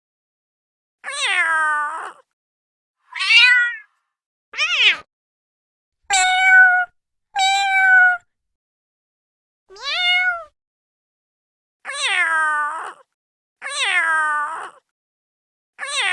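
Domestic cat meowing: about nine separate meows with dead-silent gaps between them, several sliding down in pitch. The last three are the same meow repeated.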